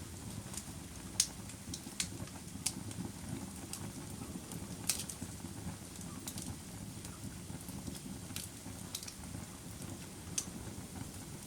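Campfire crackling: irregular sharp pops and snaps over a steady low rumble of burning wood, the loudest pop about a second in.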